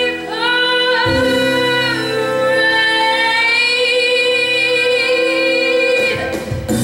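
A woman belting a Broadway show tune over musical accompaniment. After a few shorter notes she holds one long note for about four seconds, which stops near the end.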